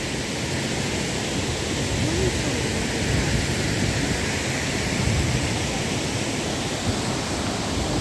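Steady, even rush of water from Hundru Falls, which drops from a great height, and the river flowing on below it.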